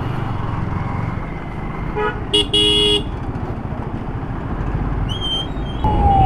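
Road traffic in a jam, with a steady engine and road rumble. A vehicle horn honks twice about two and a half seconds in, a short toot and then a longer one. A long falling tone begins near the end.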